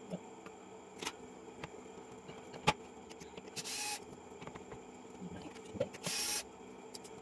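Sharp clicks and taps of small parts being handled during a keyboard key repair, the loudest a single click a little under three seconds in, with two short hisses of about half a second each, near the middle and again about six seconds in.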